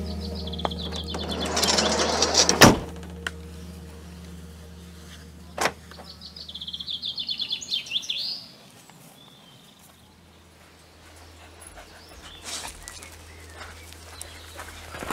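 Small songbird singing two bursts of rapid trills. Between them a vehicle door slides shut with one loud bang about two and a half seconds in, and a smaller click follows a few seconds later.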